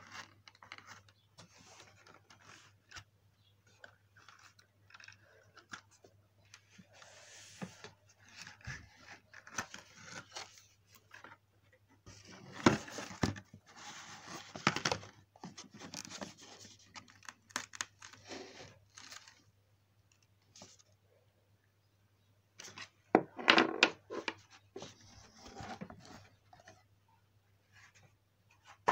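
Hands working a fashion doll free of its box packaging: plastic and cardboard rustling, tearing and crinkling with scattered clicks, loudest in two spells of handling, about midway and again near the end. A steady low hum runs underneath.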